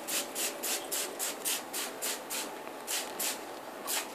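Trigger spray bottle squirting water onto hair: a quick run of short hissing squirts, about four a second, with a short pause a little past three seconds in.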